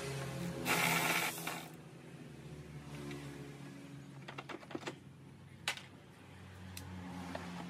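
Hand tools working in an engine bay: a short rush of noise about a second in, then a quick cluster of light metallic clicks a little past the middle, over a low steady hum.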